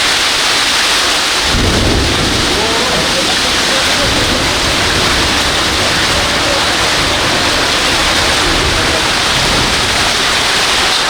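Heavy rain pouring down in a steady, loud hiss, with a low rumble joining in about a second and a half in.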